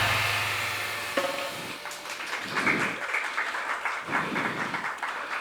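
Drum kit ringing out after the last strokes of a solo, fading over the first second or so. Audience applause follows.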